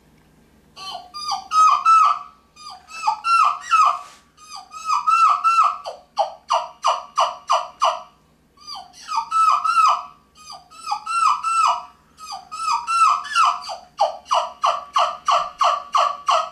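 Yelper turkey call played by drawing air back through it, imitating a young turkey's kee-kee run. It gives quick runs of short whistled notes, each rising then dropping in pitch, with brief pauses between the runs.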